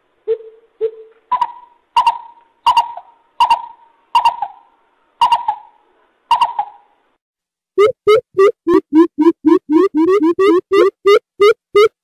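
Greater coucal calling: two deep hoots, then a slower run of higher, sharper notes about one every 0.7 s. After a short pause, a fast even series of deep hoots at about three to four a second starts near the end.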